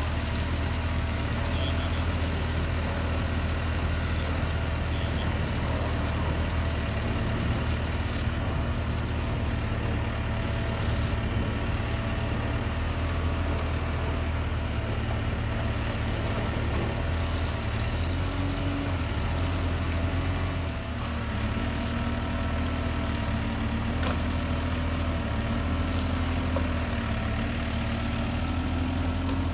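Fire truck engine running steadily at idle, a low hum that holds level throughout; in the second half its pitch wavers slightly up and down.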